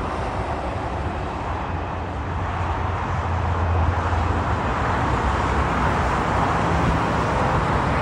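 Distant jet engine noise from an Embraer E175 on the runway, mixed with road traffic: a steady rush with a low hum that grows a little louder about three seconds in.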